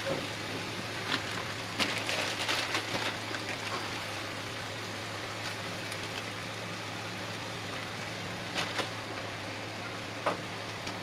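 Cabbage and potato pieces frying in a steel kadai over a gas burner, giving a steady sizzle, with a few short clicks and taps as spices are added by hand.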